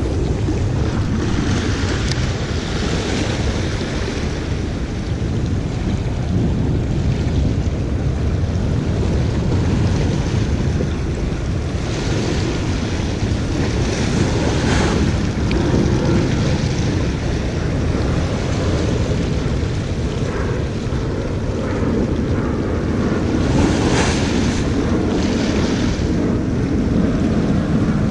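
Small sea waves washing and splashing against the jetty rocks, with wind buffeting the microphone throughout; a few louder splashes come through, the clearest near the end.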